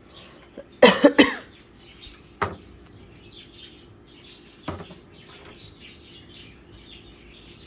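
A person coughing twice in quick succession about a second in, with a hoarse, sore throat; a few sharp knocks follow, and faint bird chirps sound in the background.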